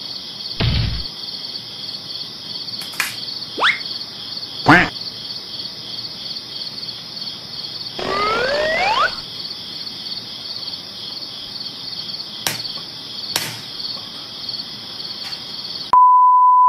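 Cricket-chirping sound effect, a steady pulsing chirr, with a few short clicks and whistle-like glides over it. Near the end it cuts to a steady single-pitch test-tone beep.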